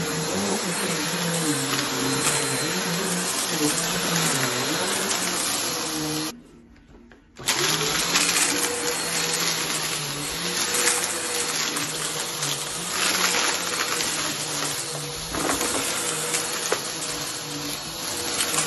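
Vacuum cleaner running over a shag rug, its motor pitch wavering, with crackling crunches of debris being sucked up. About six seconds in the sound cuts out for roughly a second, then the vacuum is running again.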